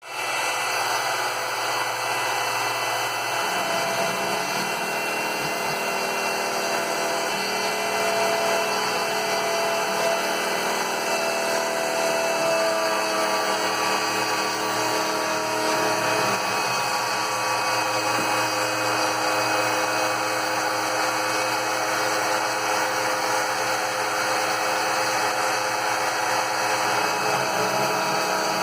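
CNC router spindle milling a 12.7 mm aluminium plate: a steady whine over continuous cutting noise, with some tones shifting in pitch a few times as the cut changes.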